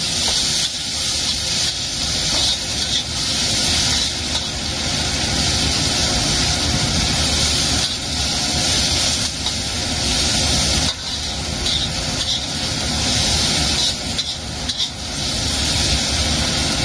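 Chopped tomato, chilli and aromatics sizzling in hot oil in a stainless steel wok, a metal spatula stirring and scraping through them, over a steady low hum.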